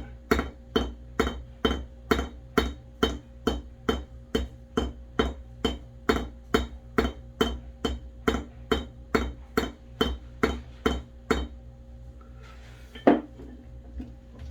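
Small hammer peening a pin against a steel anvil: light, even taps at about three a second, the hammer dropped under its own weight and bouncing, mushrooming the pin's end. The taps stop after about eleven seconds, and one sharper knock follows near the end.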